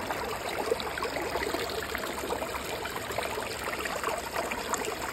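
Shallow river water running and trickling steadily over flat rock ledges.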